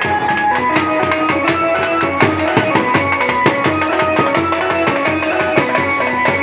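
Live band music: an electronic keyboard plays a melody of short held notes through a horn loudspeaker, over a neck-slung drum beaten in a steady rhythm.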